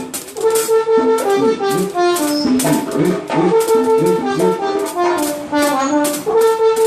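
Band horn section of trumpet, saxophone and trombone playing a quick melodic riff of short held notes over a steady percussion beat, as part of a sound check.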